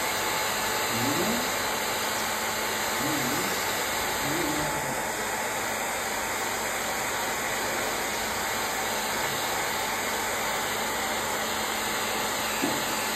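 Handheld hair dryer blowing steadily on a puppy's coat, its even rushing noise carrying a faint steady tone. A small click near the end.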